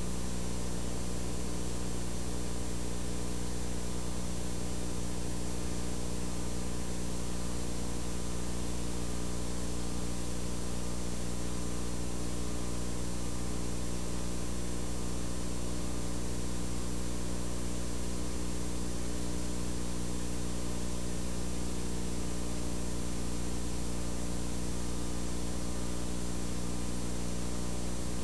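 Steady low electrical hum with several overtones over an even hiss.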